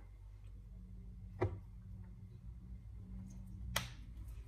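Quiet room with a low hum and two sharp clicks, about a second and a half in and again near the end, as a paprika jar is handled and shaken over a bowl.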